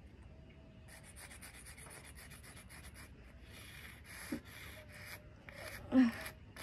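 Sidewalk chalk scraped over a concrete driveway in quick back-and-forth strokes, colouring in a large area; the strokes start about a second in after a short pause. A short vocal sound near the end is the loudest moment.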